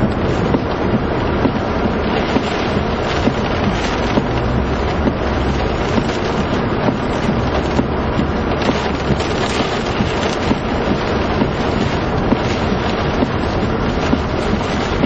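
Heavy storm rain and wind: a dense, steady, loud rush of noise with many small sharp hits throughout, in a thunderstorm next to a tornado.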